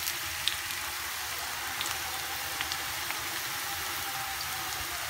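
Chopped mushrooms sizzling steadily in hot oil in a pan, with a few faint crackles; the pieces are fried nearly golden brown.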